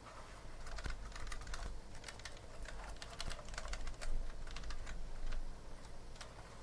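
Outemu Purple mechanical key switches on a hot-swap FL-ESPORTS MK870 keyboard, clicking rapidly and irregularly as they are pressed.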